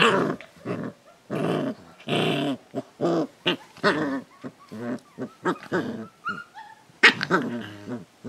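Two 40-day-old Akita puppies play-fighting, growling in repeated short bursts with a few high yips. A sharp click about seven seconds in.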